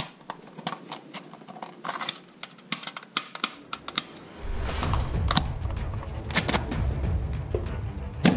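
Irregular clicks and taps of hard plastic toys being handled, with a low rumble setting in about halfway through.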